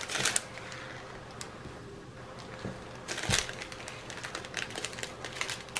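Plastic zip bags of small round resin diamond-painting drills being handled: the bags crinkle and the drills click and shift inside them in quick, irregular clusters, sparse at first and busier in the second half.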